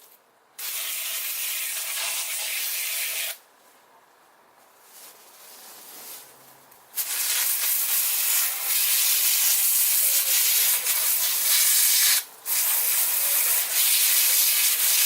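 A spray hissing in long bursts onto a seized, rust-packed tailgate latch handle to flush it out: first a burst of about three seconds, then after a pause a longer, louder one with a brief break near the end.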